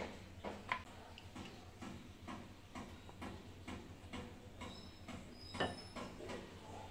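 Steady, fast ticking, about two to three ticks a second, with one louder click about five and a half seconds in.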